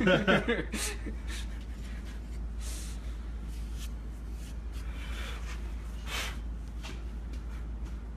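A few brief, soft scrapes of a small hand tool working oil-bonded Petrobond moulding sand in a wooden flask, over a steady low hum.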